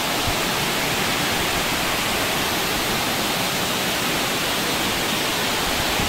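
Steady, even rushing of a multi-tiered waterfall.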